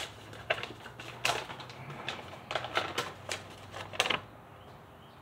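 Paper being handled: a folded instruction sheet opened out, making a string of short, sharp, irregular crackles.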